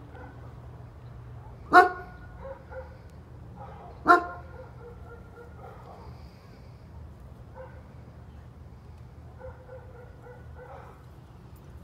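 German Shepherd barking twice, two single loud barks a little over two seconds apart.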